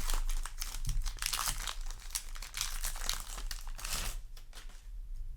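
Foil trading-card booster pack wrapper being torn open and crinkled: a dense crackling that thins out about four seconds in.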